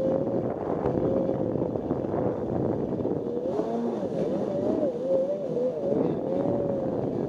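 Jet ski engine running under way over water and wind noise. The engine note is steady at first, then rises and falls from about halfway through as the revs change.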